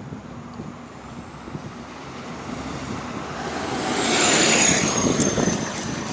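A bus approaching and pulling in, its engine noise building to loudest about four seconds in, with a high thin whine over it and a few sharp clicks near the end. This is the bus known for an exhaust leak.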